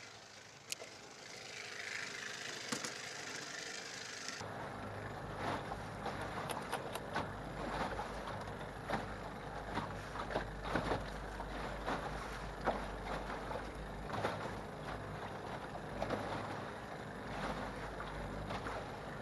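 Small aluminum jon boat rocking on swells, with water slapping irregularly against its hull over a steady low rumble. The sound gets louder and busier about four seconds in.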